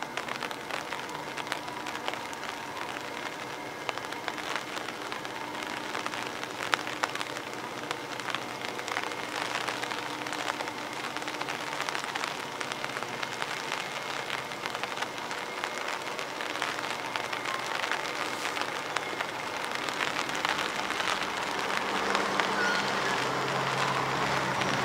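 Light rain pattering steadily on the station surroundings. Near the end, the low engine note of approaching diesel locomotives rises under it.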